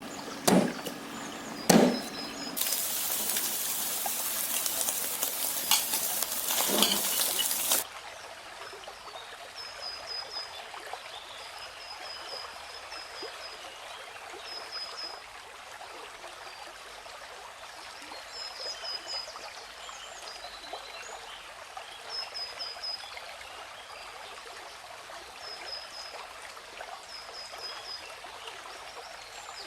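Two knocks, then water running loudly for about five seconds, then a softer steady trickle of water. Short high chirps repeat over the trickle.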